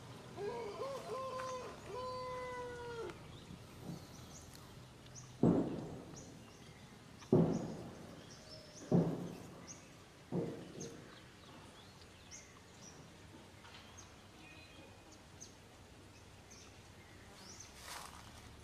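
Pig-tailed macaque infant whimpering: several short, arched crying calls in the first few seconds. Then four loud, sharp sounds follow about a second and a half apart, with small birds chirping faintly throughout.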